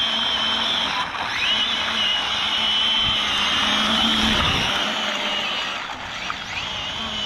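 Arrma Felony 1/7-scale RC car's brushless motor whining as the car is driven, running on a shredded tire. The whine dips about a second in and then climbs again, and rises once more near the end, over tire noise on the asphalt.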